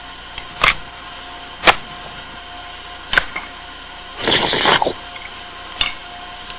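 Noisy, greedy eating: a handful of short, sharp mouth noises, with a longer one lasting under a second about four seconds in.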